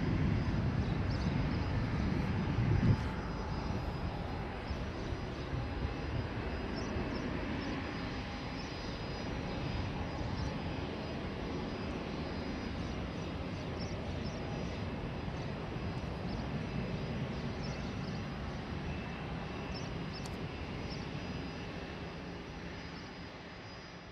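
Jet noise from an Embraer 190's twin CF34-10E turbofan engines at take-off power, heard from the ground as a low rumble while the airliner climbs away. It is loudest in the first few seconds, then slowly recedes and fades out near the end.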